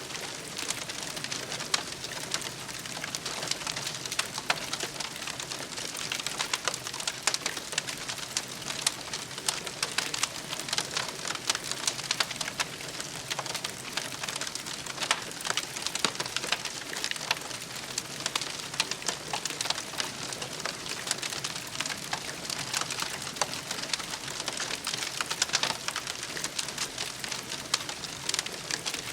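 Campfire crackling: a steady hiss with many small pops and snaps scattered throughout.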